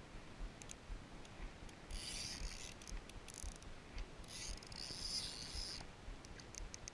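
Spinning reel being cranked by hand: a light mechanical whirr from the reel's gears and rotor. It comes in two runs, about two seconds in and again from about four to six seconds in.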